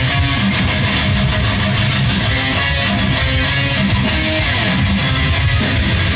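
Loud rock music with guitars and a heavy low end.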